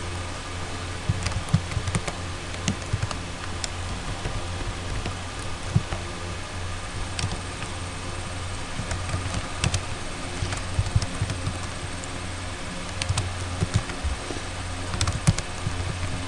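Computer keyboard typing: irregular runs of key clicks over a steady low hum.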